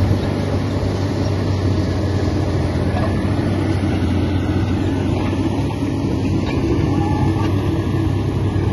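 Komatsu D85 bulldozer's diesel engine running steadily under load, a deep rough drone.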